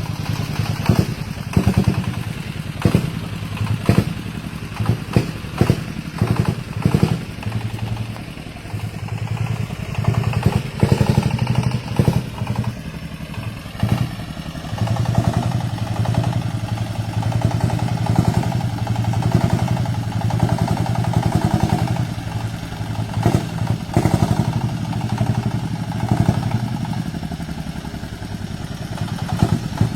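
Diesel engine of a homemade farm vehicle running steadily, with repeated sharp clattering knocks through the first half; about halfway through the knocks thin out and the engine note becomes steadier and fuller.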